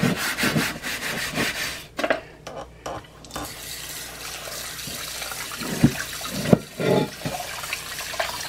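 Cast iron griddle scrubbed by hand in a sink for about two seconds, then tap water running steadily over it as it is rinsed. A few knocks come near the end.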